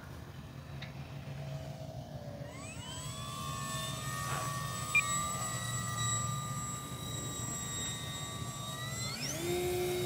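Electric motor and propeller of a Flyzone Calypso RC sailplane, run on a 4S battery, spooling up about two and a half seconds in into a steady high whine, then changing pitch abruptly near the end. Wind rumbles on the microphone throughout.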